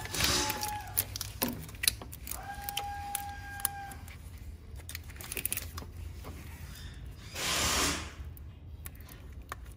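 Small plastic clicks and rattles of wiring harness connectors being unclipped and handled on the engine, over a steady low hum. A short loud rushing noise comes about seven and a half seconds in.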